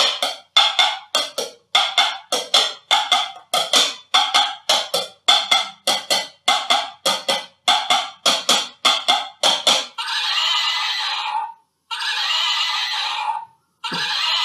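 Horse sound effects from a toy hobby horse: a rhythmic clip-clop of galloping hooves, strikes in quick pairs about twice a second, then three horse whinnies of about a second and a half each.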